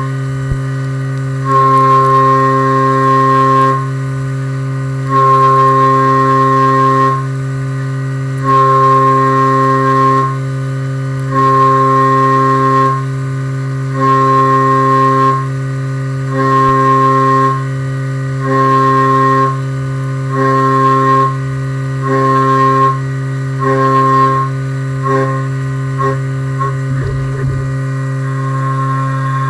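Haas VF-2 CNC mill spindle running at 8100 RPM with a steady hum, while the end mill's whine sounds in repeated cuts of about two seconds each. The cuts grow shorter and come faster near the end.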